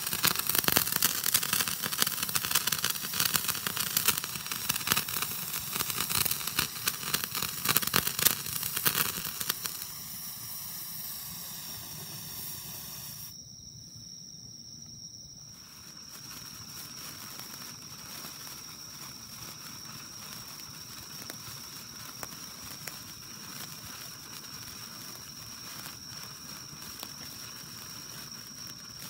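Handheld crackling firework spraying sparks with a loud, dense crackle and hiss for about the first ten seconds, then dying away. After a brief gap there is a quieter stretch with a steady high-pitched tone and a few faint scattered crackles of a sparkler.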